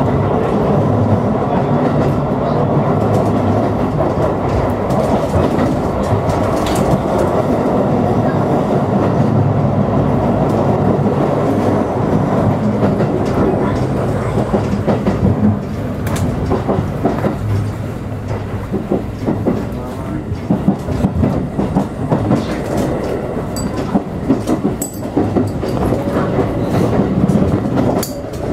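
JR Hokuriku Line Shin-Kaisoku electric train running, heard from inside the carriage: a steady rumble of wheels on rail. About halfway the rumble eases a little, and single clicks and knocks of the wheels over rail joints come through more clearly.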